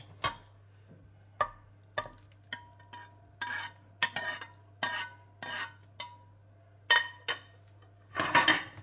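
Metal ladle clinking and scraping against a frying pan as soup is scooped and scraped out into a ceramic baking dish, with wet sloshing as it lands. A string of sharp clinks and short scrapes, some ringing briefly, with a longer scrape near the end.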